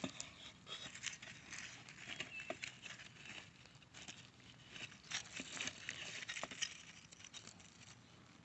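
Small hand trowel digging and scraping in loose soil and dry straw mulch around a garlic plant to lift the bulb: faint, irregular scratching and rustling with scattered small clicks, coming in uneven spurts.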